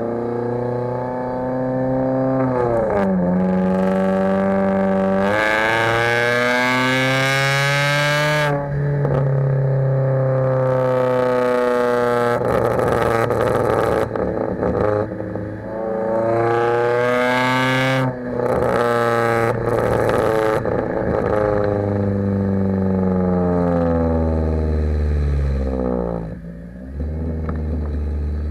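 Exhaust of a 2011 Kia Forte EX's four-cylinder engine under hard acceleration through the gears. Its pitch climbs and drops back at each upshift, several times, then it winds down near the end.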